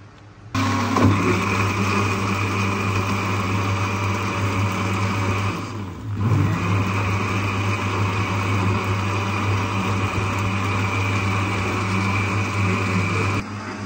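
Electric blender running, blending the mint drink; it eases off briefly about six seconds in, picks up again and switches off near the end.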